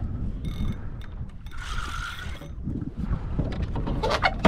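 A fishing reel buzzes for about a second about halfway through, over a steady rumble of water and wind against a kayak. A few clicks and a sharp knock come near the end.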